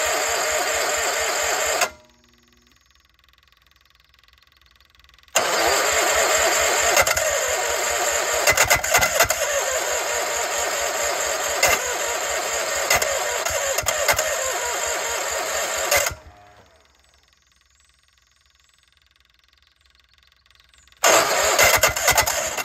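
Case 1816C skid steer's engine being cranked over by its starter in three spells, a short one, a long one of about ten seconds and a short one near the end, each stopping abruptly without the engine catching; it smells flooded after earlier tries.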